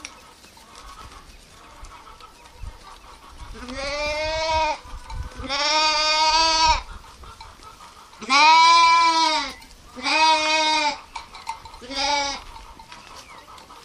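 Sheep bleating: five drawn-out bleats of about a second each, starting about three and a half seconds in, the last one short.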